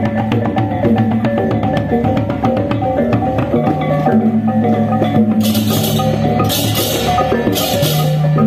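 Balinese gamelan music: metallophones playing quickly repeated struck notes over drums. From about halfway in, cymbals clash roughly once a second.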